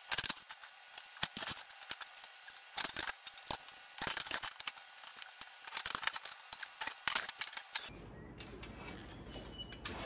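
Metal conduit tubing being bent with a hand conduit bender on a concrete floor: a run of sharp metallic clicks, creaks and short scrapes. About eight seconds in they stop abruptly, giving way to a low steady hiss.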